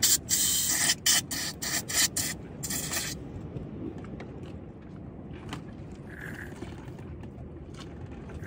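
Aerosol carburetor cleaner hissing out of its straw into an outboard engine's carburetor jets, in a run of short bursts over about the first three seconds, flushing a jet suspected of being blocked by dirt. Faint clicks of the part being handled follow.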